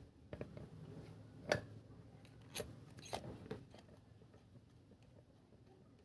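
Scattered light clicks and taps of small metal parts and hand tools being handled while a starter motor is reassembled: about five sharp ticks in the first four seconds, the loudest about a second and a half in, then quieter.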